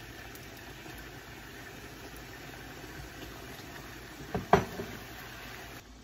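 Steady hiss of a pot of curry coconut sauce simmering as corn cobs are added, with a short clatter of loud knocks about four and a half seconds in.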